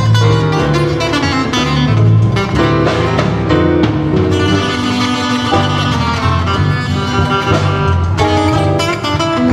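Live band playing an instrumental blues passage: acoustic guitar over electric bass, drums and keyboard.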